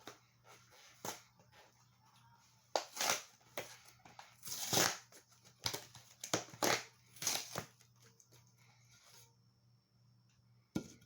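A string of short rustling, crinkling and scraping handling noises, about a dozen in the first eight seconds, then a pause and one sharp knock near the end.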